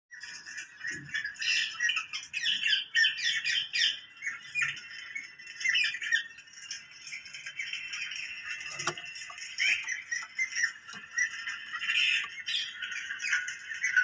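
Rose-ringed parakeets (Indian ringnecks) chattering with rapid, short, high squawks and chirps, running together more densely near the end.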